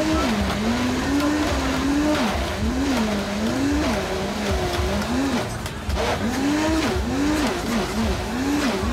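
Countertop blender running, blending watermelon into a smoothie. Its motor whine swoops down and back up over and over as the load on the blades shifts, and the swings come quicker near the end.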